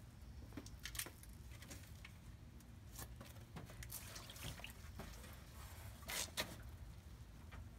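Faint splashing and dripping of water with a few light knocks as a wooden block is set down and pressed onto willow rods soaking in a galvanized stock tank; the loudest is a close pair of knocks about six seconds in.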